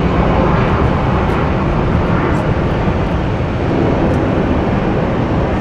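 Jet airliner engines, a loud steady rumble.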